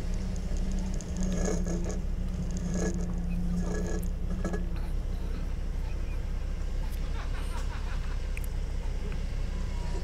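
Doosan 4.5-ton forklift's engine running steadily as the forklift drives forward, with a few brief higher-pitched sounds in the first half.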